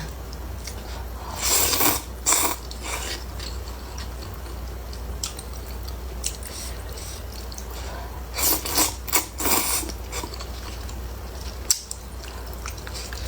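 Close-miked eating sounds: short bursts of biting and chewing about a second and a half in and again around eight to ten seconds in, with a sharp click near the end, over a steady low hum.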